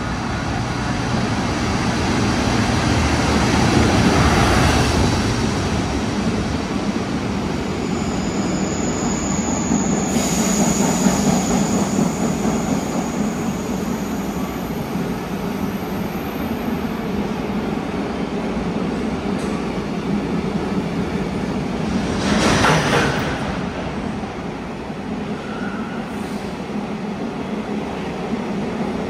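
An EF210 electric-locomotive freight train running through an underground station platform: the locomotive comes past, then a long line of container wagons rolls by with a steady rumble. A thin high wheel squeal starts about eight seconds in and lasts about six seconds, and a short loud rush comes about twenty-two seconds in.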